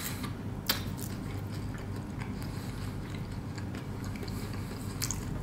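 Close-miked chewing of toasted garlic cheese bread: soft, wet mouth sounds with faint scattered crunches and one sharp click a little under a second in, over a low steady hum.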